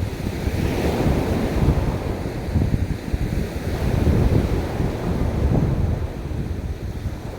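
Ocean surf washing on a beach, with wind buffeting the microphone in a steady, choppy rumble.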